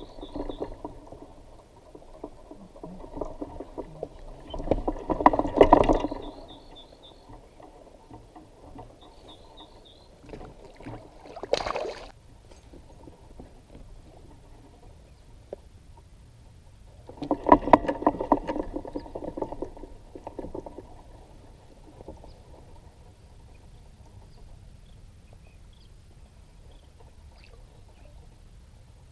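Hobie fishing kayak on calm water, with two louder stretches of fast rhythmic clatter about five and eighteen seconds in and a brief sharp sound near the middle.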